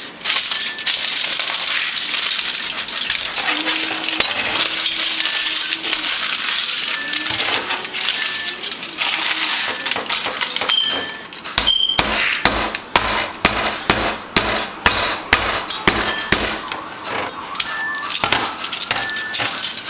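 Fried plantain slices being pressed flat into tostones: a run of sharp knocks, about two a second, in the second half, after a steady hiss in the first half.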